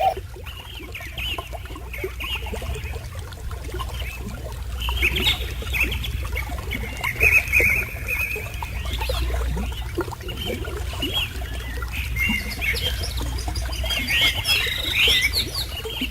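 Many wild birds calling and chirping at once, short calls overlapping throughout, over a steady low rumble.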